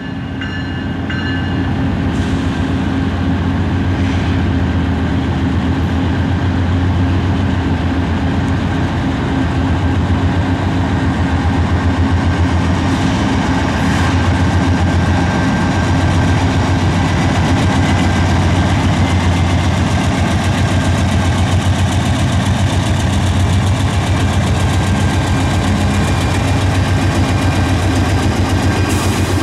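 Diesel engines of a Norfolk Southern freight's lead locomotives, two GE C44-9Ws and an EMD SD70ACu, working as they approach and pass close by; the sound builds over the first two seconds, then stays loud and steady with a deep even hum.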